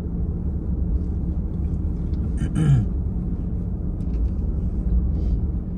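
Steady low rumble of engine and tyre noise heard from inside a vehicle driving slowly on an asphalt road. A short sound with a falling pitch about halfway through.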